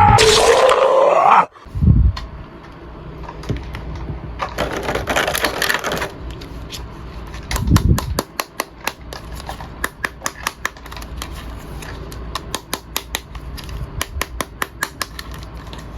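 A plastic action figure and its packaging being handled: a thump about two seconds in, rustling, then a run of sharp plastic clicks, several a second.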